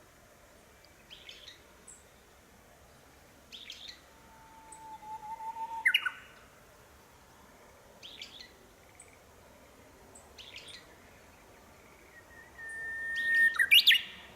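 Japanese bush warbler (uguisu) singing its 'hoo-hokekyo' song twice: a long held whistle that breaks into a quick rising flourish, about four seconds in and again near the end, louder the second time. Short chirping notes sound in between.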